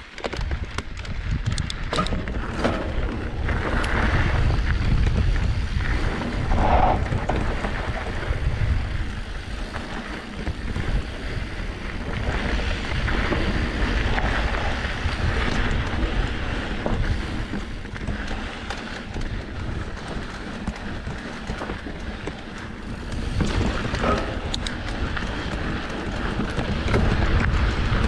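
Mountain bike rolling along a dirt singletrack, its tyres crunching over packed dirt and gravel, with steady wind rumble on the camera microphone. A few sharp rattles from the bike come early and again about three-quarters of the way through.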